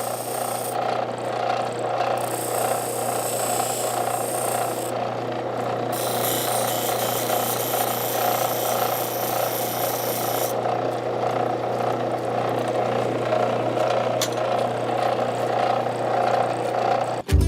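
Small electric power tool running steadily while it grinds or deburrs a metal piece. A high grinding hiss starts and stops several times as the tool meets the metal.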